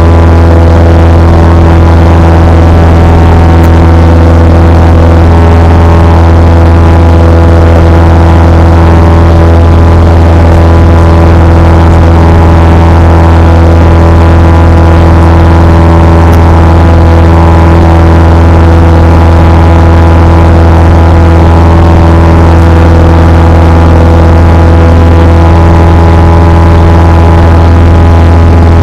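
Cessna 172 Skyhawk's piston engine and propeller heard from inside the cabin in flight, a loud, steady drone with a deep hum at its bottom, holding constant power throughout.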